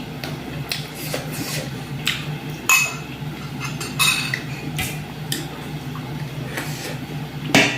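Tableware clinking: a spoon knocking and scraping on a plate and bowl, a scattered handful of light clinks. A steady low hum runs underneath.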